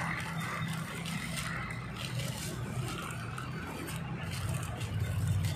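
An engine running steadily in the background, a low hum that grows a little louder near the end, with faint crinkling and rustling of plastic wrap as string is tied around an air-layered rubber plant branch.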